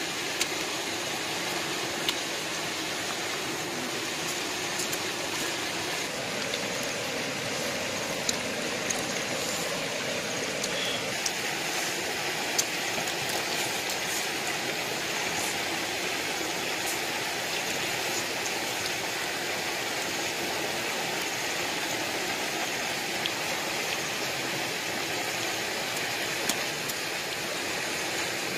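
Steady rush of a stream running over rocks, with a dozen or so short sharp clicks scattered through it.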